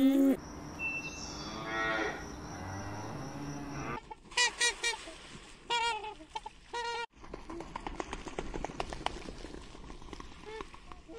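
Cows mooing, with one long drawn-out moo that rises in pitch, then waterfowl calling: a quick run of three short honking calls followed by a few more, and then a patter of light clicks and scattered faint calls.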